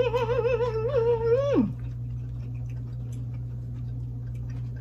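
A woman humming a long, wavering "mmm" of enjoyment with her mouth closed while savouring a bite of food. The hum falls off in pitch and stops about a second and a half in, leaving faint chewing and utensil clicks.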